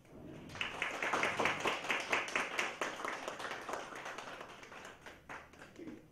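Audience applauding: the clapping starts about half a second in, is loudest over the next couple of seconds, then thins out and dies away near the end.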